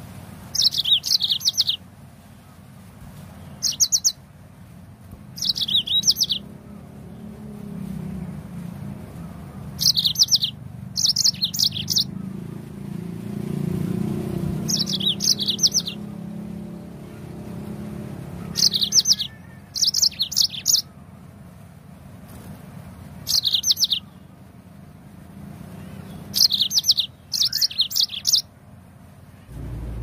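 Yellow-fronted canary (Mozambique canary) singing short bursts of rapid high chirping notes, each under a second long, about a dozen of them separated by pauses of one to four seconds.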